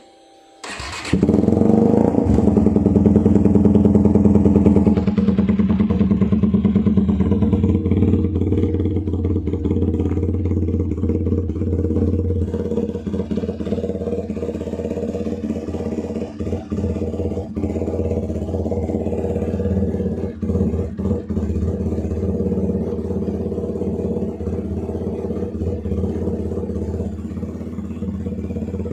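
Benelli Leoncino 250 SE's single-cylinder engine, breathing through an aftermarket SC Project exhaust, starting about a second in. It runs louder for the first few seconds, then settles into a steady idle.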